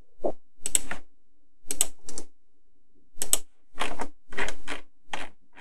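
Computer mouse scroll wheel spun in short bursts, about eight runs of rapid notched clicks, as the view is zoomed in and out.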